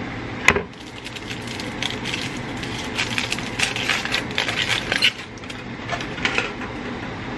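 A sharp knock about half a second in, then aluminium foil crinkling and crackling as it is peeled off a half onion.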